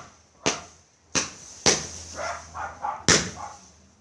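Consumer firework going off in a rapid series of sharp bangs, four reports with a short ring after each, irregularly spaced over about three seconds.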